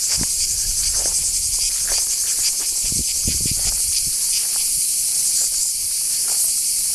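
A chorus of cicadas in olive trees buzzing loudly and steadily, a high, fast-pulsing drone. A few low thuds are heard near the start and about three seconds in.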